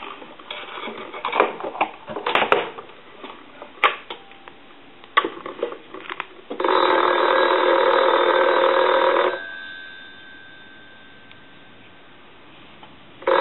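Crosley 302 reproduction desk telephone ringing on a ring signal from a telephone analyzer: one ring of nearly three seconds about halfway through, and the next ring starting at the very end. Before the ring there are scattered clicks and knocks.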